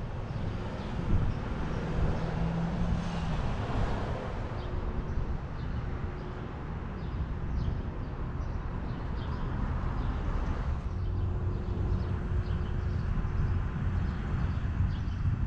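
Outdoor street ambience: road traffic passing with a steady low rumble.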